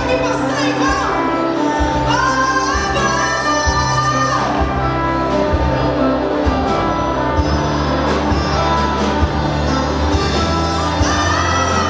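Live gospel band playing with a lead singer, a woman's voice prominent, holding long sung notes over steady bass and keyboard-like chords.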